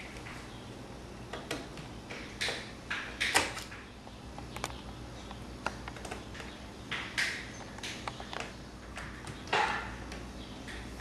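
Small screws being fitted to mount a replacement laptop screen in its lid: scattered clicks, taps and short scrapes of a screwdriver and handled plastic and metal parts, a few seconds apart.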